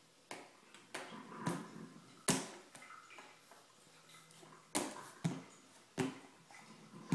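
A baby playing with a small object in a foam floor seat, making a series of sharp knocks and taps, about eight of them at uneven intervals.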